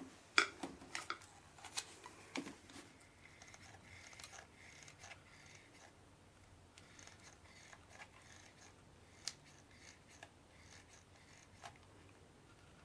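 Faint hands-on crafting sounds: a few sharp small clicks, mostly in the first couple of seconds and a couple more later, with light scraping and rustling of the glider's parts between them.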